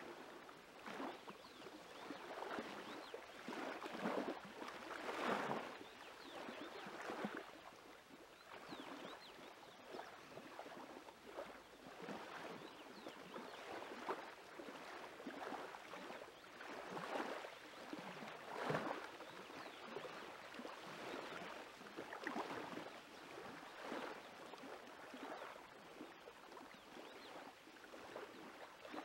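Small waves lapping on a lakeshore, washing in irregularly every second or two.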